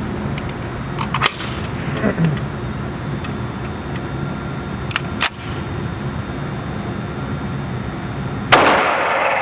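Gunshots at a pistol range: a sharp shot about a second in and two more close together around five seconds in, among fainter, more distant shots, including the last round from a CZ 97B .45 ACP pistol. Near the end, a steady rushing noise starts suddenly.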